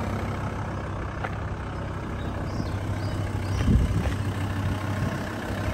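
VW T4 van's 2.5 TDI five-cylinder diesel idling steadily, heard from beside the van, with a couple of brief low thuds about four seconds in.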